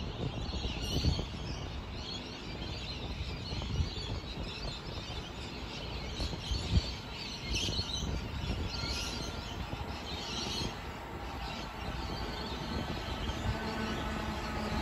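Birds chirping over a low, steady outdoor rumble, with a few brief knocks. Near the end, the hum of an approaching Sydney Trains Millennium (M set) electric train comes in.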